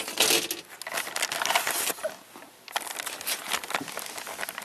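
Handling noise from plastic fan parts being worked by hand: a dense rustling with many clicks for about two seconds, a short lull, then scattered clicks.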